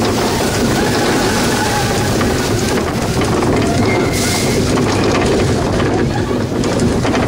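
Vekoma mine-train roller coaster running along its track, heard from a rider's seat: a steady rumble of the wheels on the rails mixed with wind rushing over the microphone. A brief hiss comes about four seconds in.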